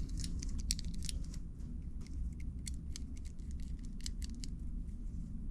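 Light, irregular metallic clicks and ticks of a banjo bolt, seal washers and banjo fitting being handled and screwed by hand into a Hope X2 brake caliper, over a steady low hum.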